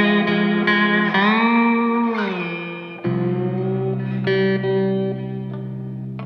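Instrumental music with sustained, ringing notes. About a second in, the notes bend up and slide back down, and a new, lower chord comes in sharply about three seconds in.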